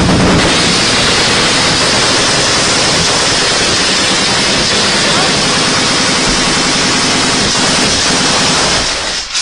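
Sustained close-range automatic gunfire overloading the microphone into one continuous wall of loud noise, which breaks off near the end.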